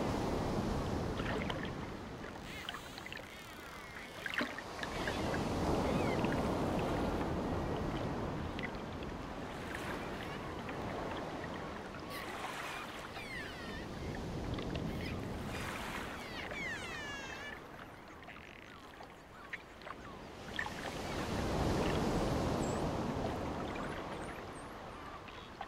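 Ocean surf breaking and washing up a sandy beach, in slow swells that rise and fall: one at the start, one about five seconds in and another past twenty seconds. Between the swells come a few short, high bird calls.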